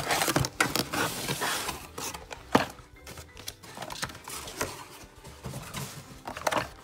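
Stiff plastic blister packs crinkling and clacking as they are handled, lifted out of a cardboard box and set down on a table, with several sharp clacks, over faint background music.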